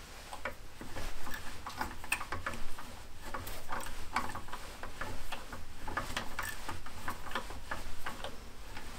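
Hand tap being turned with a tap wrench, held square by a guide in the milling machine, cutting threads in a metal frame plate: a run of faint, irregular clicks and ticks.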